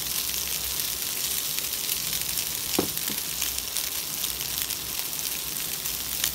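Chicken breast pieces frying in oil in a pan: a steady sizzle with scattered crackling pops, and a short knock about three seconds in.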